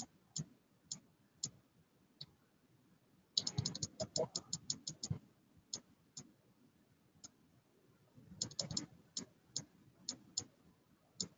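Faint clicking of a computer keyboard and mouse: scattered single clicks, with quick runs of typing about three seconds in and again near eight seconds.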